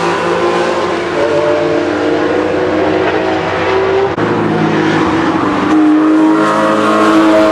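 Porsche sports car engines running hard on a racetrack, loud throughout, with the engine note shifting in pitch as the cars pull through.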